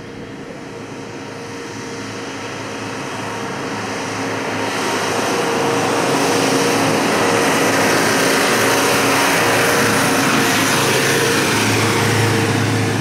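Mercedes-Benz 409D diesel van towing a trailer driving past: a steady engine note with tyre noise, growing louder as it approaches and easing slightly after it passes about two-thirds through.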